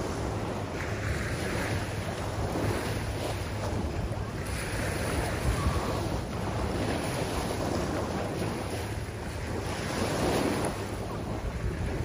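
Small sea waves breaking and washing up the beach, swelling louder every few seconds, with wind rumbling on the microphone underneath.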